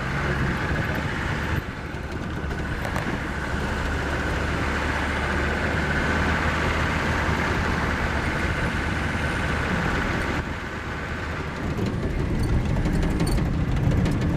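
Off-road 4x4 engine running steadily as the vehicle drives along the sleepers of a narrow-gauge railway track, with tyre and road noise. It eases off briefly about ten seconds in.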